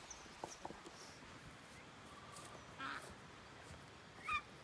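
Domestic ducks calling: one harsh call about three seconds in, then near the end the first of a run of short, nasal quacks.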